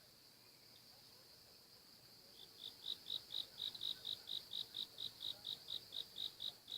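Insects chirping over a steady high trill: from about two seconds in, a regular run of high chirps, about four a second, stops suddenly near the end.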